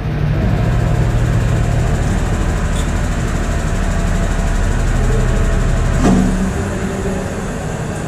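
Toshiba top-loading automatic washing machine in its spin-dry stage, the drum spinning with a steady low rumble and hum. A brief knock comes about six seconds in, and the rumble then begins to die away as the spin winds down.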